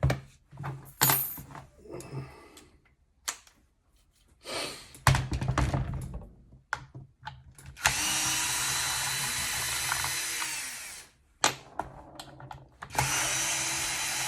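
Cordless drill-driver running in two steady bursts, about three seconds and then two seconds long, backing out the machine screws on the back of a Paslode IM350+ nailer. Before them come scattered clicks and knocks of the tool being handled.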